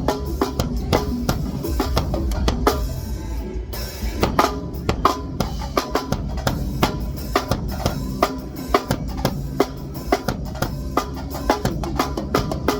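Acoustic drum kit played in a steady groove, with kick drum, snare hits and cymbals, over a bass line and other backing music.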